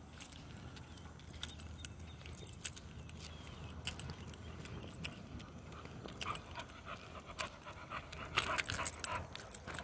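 XL American bully dog panting steadily, with a run of sharp clicks and rattles growing louder over the last few seconds.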